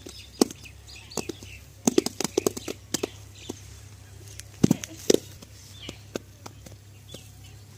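Hands slapping and patting wet cow dung into dung cakes on the ground: a run of sharp, irregular slaps, coming in bunches about two seconds in and again around five seconds.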